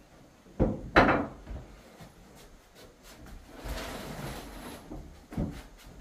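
Wooden knocks as boards are handled during the wall and door assembly: two sharp knocks close together about a second in, the second the loudest, then about a second of scraping, and another knock near the end.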